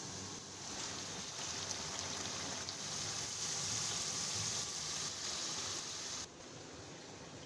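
Rice boiling hard in a wide pan of water: a steady bubbling hiss that stops abruptly about six seconds in.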